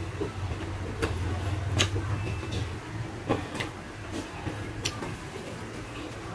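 A person eating with his hands, chewing with wet mouth sounds and several sharp lip smacks or clicks.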